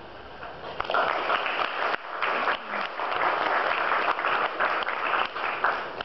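Audience applauding, starting about a second in and dying away just before the end.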